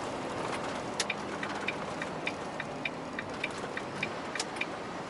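Steady road and engine noise inside a moving truck's cab, with a regular light ticking, about three ticks a second, from about a second in.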